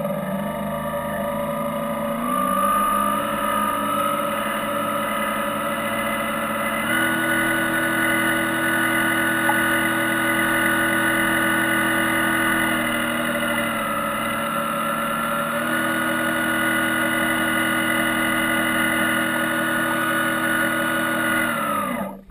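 Model trawler's drive motor running close up as a steady whine. Its pitch rises in a step about seven seconds in, dips around thirteen seconds, climbs again a couple of seconds later, and falls away near the end as the throttle changes.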